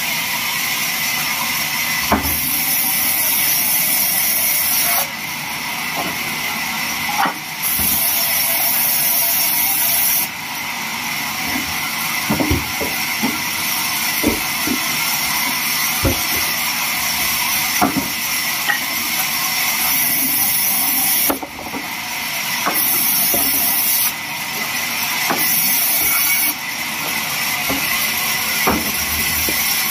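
Large vertical bandsaw resawing timber slabs: a steady high hiss of the blade cutting through wood that swells and drops every few seconds as cuts begin and end. Scattered sharp knocks of wood against the steel table.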